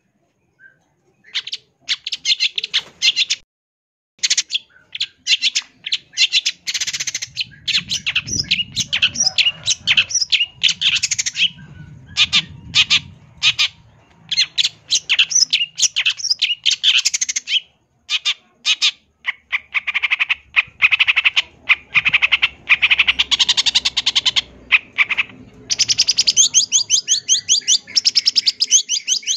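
Long-tailed shrike (cendet) singing a dense, rapid chatter of short harsh and squeaky notes, the kind of song full of mimicked fills kept for training other birds. It starts about a second and a half in and runs almost without pause, with short breaks.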